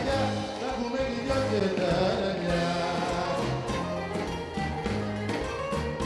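Live Greek band music: a man singing into a microphone over bouzouki and drum kit, with a steady beat and a moving bass line.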